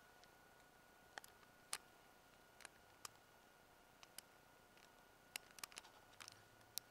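Near silence with a faint steady high tone, broken by about ten small, sharp clicks and ticks at uneven intervals, several of them bunched together near the end.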